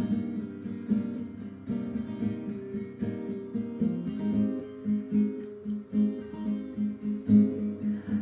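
Acoustic guitar strumming chords as the lead-in to a song. About halfway through, the strokes settle into an even, quicker rhythm of about three a second.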